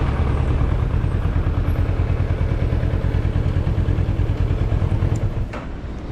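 Motorcycle engine running at low revs with a fast, even exhaust pulse as the bike rolls slowly, dropping to a quieter idle about five seconds in. A sharp click comes shortly after.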